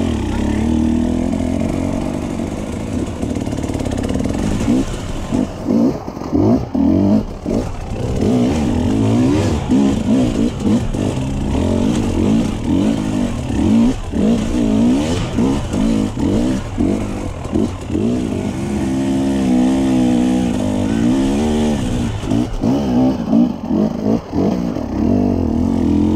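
Enduro dirt bike engine under constant throttle changes on rough singletrack: the engine note rises and falls in short bursts, with brief dips as the throttle is rolled off, and a steadier pull for a few seconds past the middle.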